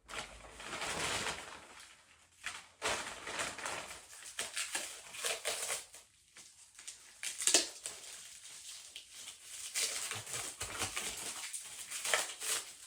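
Rustling and crinkling of packing material as an item is unwrapped by hand, in uneven bursts, with one sharp knock about seven and a half seconds in.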